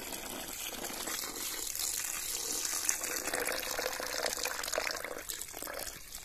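Water poured in a steady stream from a metal vessel into a metal pot of gravy, splashing into the liquid and thinning out near the end.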